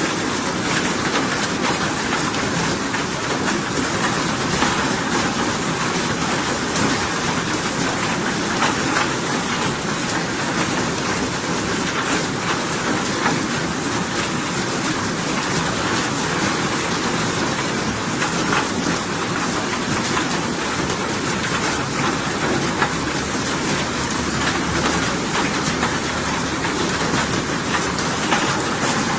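Steady rain falling: a dense, even hiss with faint scattered drop ticks.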